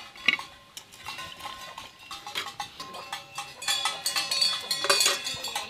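Steel utensils clinking and knocking as bowls and a ladle are handled, with sharp clinks about a third of a second in and again near the end. Goats bleat in the background.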